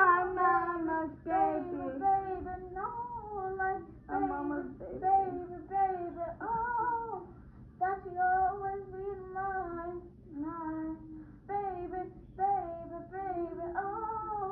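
A young girl singing solo with no audible accompaniment, in phrases broken by short pauses for breath.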